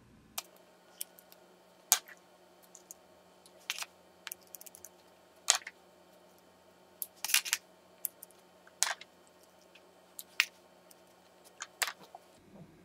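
Gel-polish bottles and their caps clicking and tapping as they are handled and set down: a string of irregular sharp clicks, a few of them louder knocks.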